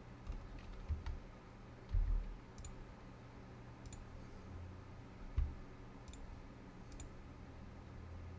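Computer mouse clicks while working in CAD software: a handful of sharp single clicks spaced a second or two apart, with a few dull low thumps between them.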